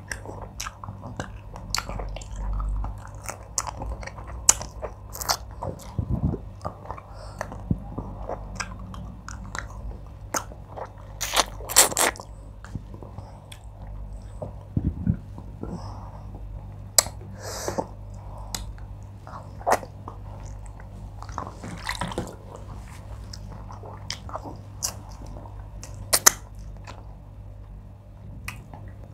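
Close-miked chewing and mouth sounds of a person eating oha soup with fish by hand: irregular wet smacks and sharp clicks.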